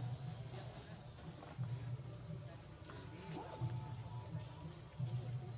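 Insects chirring steadily at two high pitches, with a low rumble coming and going underneath.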